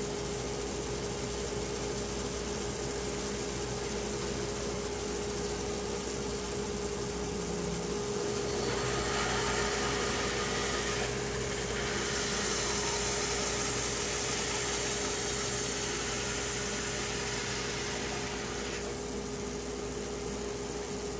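A wood-milling saw running steadily with a constant hum. From about eight to nineteen seconds in, a louder hiss rises over it and then drops back, as the blade cuts into cherry wood.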